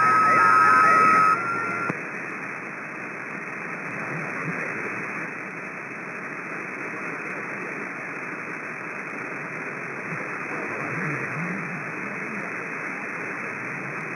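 CB radio receiver on an open AM channel hissing with steady static. For the first second and a half a steady whistle and a garbled voice sit over the static; after that only the hiss is left.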